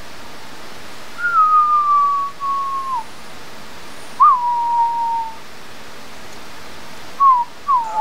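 A man and his Chihuahua howling together: long, high, whistle-like notes that each slide slightly down in pitch, with the Chihuahua howling along near the end.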